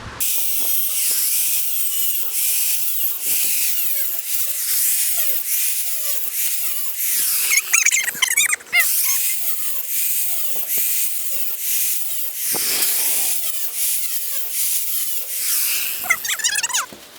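Angle grinder working steel, its pitch dipping and recovering over and over as the wheel is pressed into the metal, over a steady high hiss.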